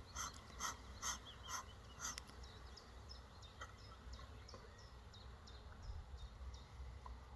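A run of short rasping strokes, about two a second, stops about two seconds in. A small bird then chirps in quick, short, falling notes over a low wind rumble.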